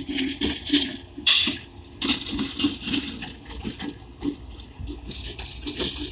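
Freight train rolling past: a steady low rumble under irregular metallic clanks and rattles from the wheels and cars on the track, with sharp high-pitched scraping bursts.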